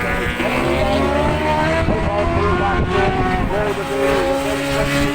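Several superbike engines running hard at once, their pitches rising and falling with throttle and gear changes as the bikes go past.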